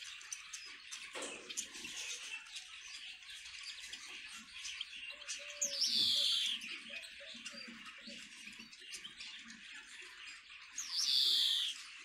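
European greenfinch singing: a long wheezy buzz, sweeping down in pitch, given twice, about halfway and near the end, over continuous twittering of small cage finches and canaries.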